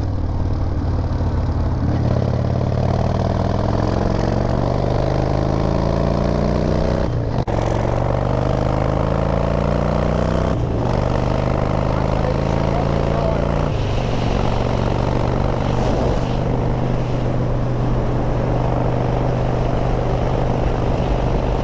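Harley-Davidson V-twin motorcycle engine accelerating up through the gears: its pitch climbs, drops briefly at each of three upshifts, then settles into a steady cruise for the last third.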